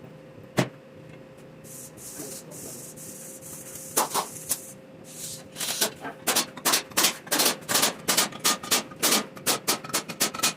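A sharp knock, then a short hiss, then a quick run of sharp knocks or taps, about three a second, through the second half, as of tools working on metal engine parts.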